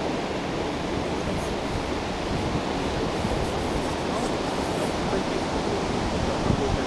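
North Sea surf washing onto the beach: a steady rush of breaking waves.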